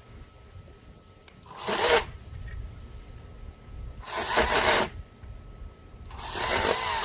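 Greenworks GS110 40 V battery top-handle chainsaw run in three short bursts, the motor whine spinning up and winding down each time. The bursts come about a second and a half in, around four seconds in, and near the end.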